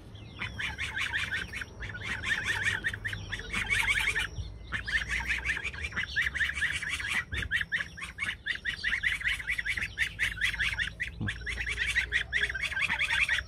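Goslings peeping rapidly and continuously in high, thin calls, with a brief pause about four and a half seconds in.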